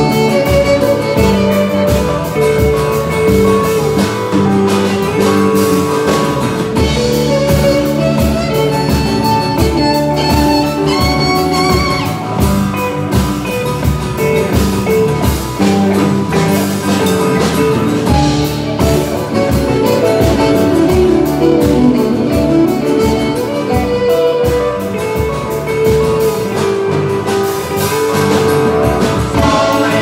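Live band jamming on a folk-rock tune: fiddle, acoustic and electric guitars, bass, drum kit and hand drums playing together with a steady beat.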